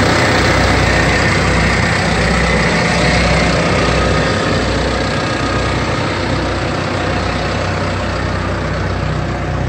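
Case IH Maxxum 110 tractor's diesel engine idling with a steady low hum, growing slightly quieter near the end.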